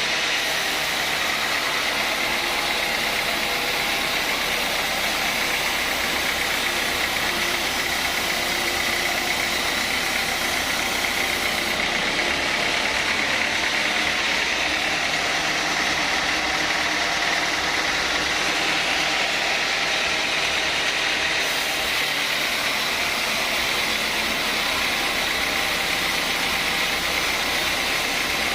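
Sawmill saw running steadily: a continuous mechanical noise with a strong high hiss, holding one level throughout.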